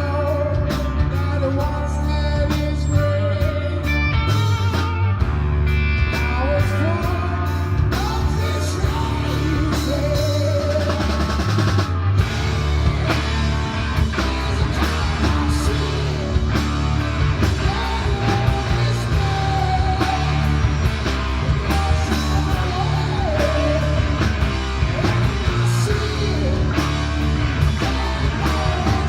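Rock music with drum kit, guitar and singing, a steady beat throughout.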